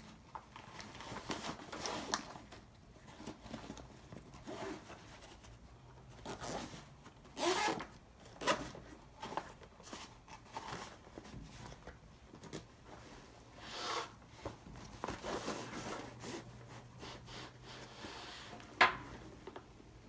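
Nylon fabric of an Alienware Vindicator 2.0 laptop backpack rustling, with several zipper pulls as a cable is stowed and the front compartment is closed. A sharp click near the end is the loudest sound.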